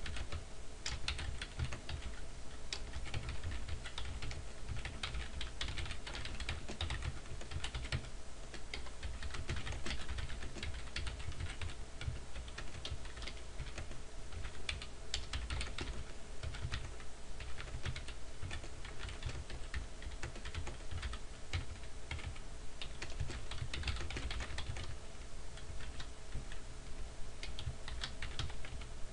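Computer keyboard typing: runs of rapid keystrokes with short pauses between words and phrases.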